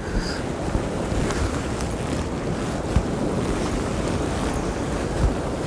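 Wind buffeting the microphone over the steady wash of surf on a rocky shore, with a few low thumps from gusts.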